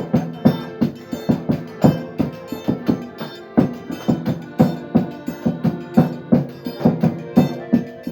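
Music with a steady drum beat, about two to three strikes a second, over pitched instruments.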